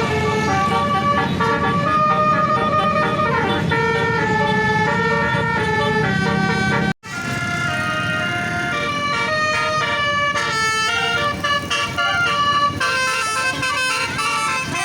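A bus's basuri telolet musical horn held on and playing a tune of held notes that step up and down in pitch. It breaks off for an instant about seven seconds in and goes straight back into the tune.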